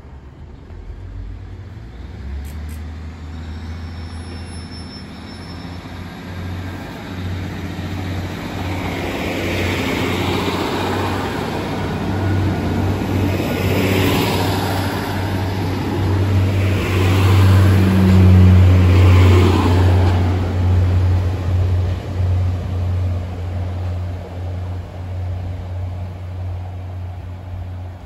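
Diesel multiple unit pulling away and running past close by, its engine drone building and loudest a little past the middle, with rumbling wheel noise as the carriages go by, then fading as it moves off.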